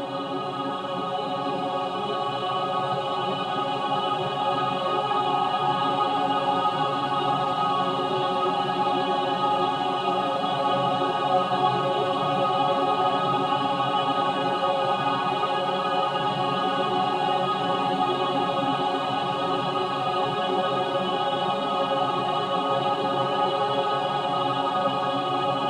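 Synthesized choir pad: a sustained, many-voiced chord of vowel-like tones that swells in over the first few seconds and then holds steady.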